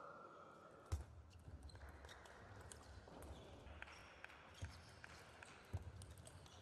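Table tennis rally: the ball clicks sharply off the bats and the table in an irregular series, loudest about a second in and again near the end. Low thuds of the players' footwork on the floor follow the hardest strokes.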